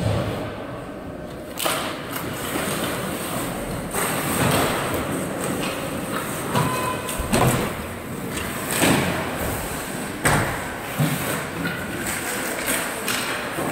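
Ice hockey play: skates scraping and sticks clattering on the ice, with several sharp knocks of the puck and players against the boards.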